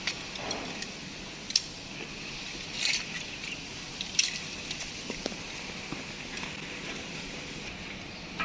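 Scattered sharp clicks and clinks of fall-arrest harness hardware being handled: buckles fastened, then a metal rope grab and hook on the lifeline, over a steady background.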